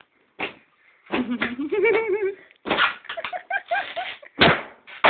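A latex balloon popping with a sharp bang about four and a half seconds in, the loudest sound here. Around it are children's excited voices with rising and falling pitch.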